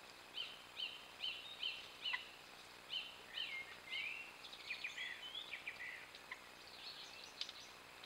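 Song thrush singing at dusk: a short, clear phrase repeated about five times in quick succession, then other phrases each given two or three times, ending in thinner, scratchier notes.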